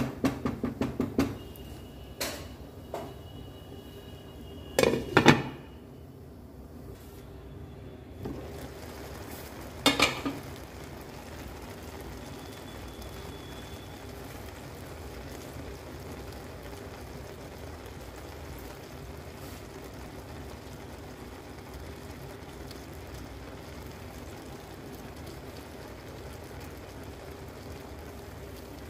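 A cooking utensil knocking against a nonstick pan of boiling pulao rice: a quick run of taps at the start, then a few single knocks and a short cluster over the first ten seconds. After that comes a steady low hiss with a faint hum.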